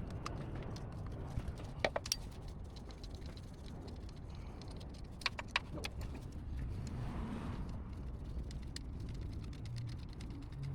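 Hand tools working on the alternator mounting bolts: scattered sharp metallic clicks and clinks, with a louder pair about two seconds in and again about five seconds in, over a low steady hum.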